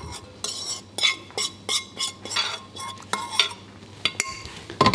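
A metal spoon scraping diced fried filling out of a frying pan into a glass bowl: a run of irregular scrapes and clinks against the pan and bowl.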